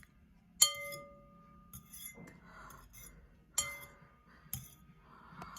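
Two clear, ringing clinks of glass or ceramic dishware being struck, about three seconds apart, each leaving a short ring of the same pitch.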